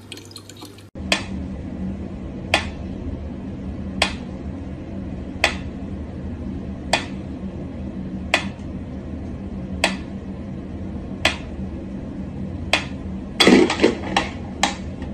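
Mechanical pyramid metronome ticking at a slow, even tempo, about one tick every second and a half. Near the end there is a quick flurry of louder knocks.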